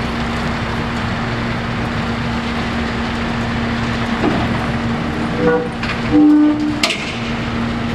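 Heavy vehicle running steadily, a constant engine hum over road rumble. Two short pitched tones sound about five and a half and six seconds in, followed by a sharp click.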